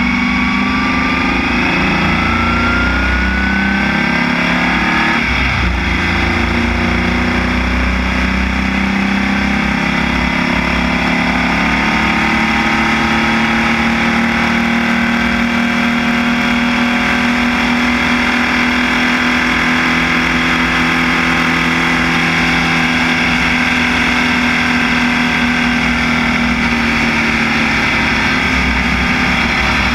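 Formula Vee racing car's air-cooled Volkswagen flat-four engine running hard under acceleration. Its pitch climbs over the first few seconds, breaks at a gear change about five seconds in, then holds high and rises slowly down the straight.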